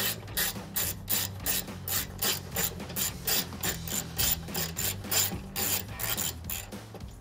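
A 1/4-inch ratchet on a long extension with a 10 mm socket, clicking in quick back-and-forth strokes, about three to four a second, as it backs out a headlight mounting bolt.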